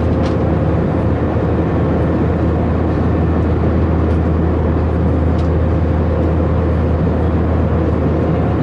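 Airbus A319 cabin noise in flight, heard at a window seat beside the wing: a steady rush of airflow and the IAE V2522-A5 turbofan's drone over a strong low hum.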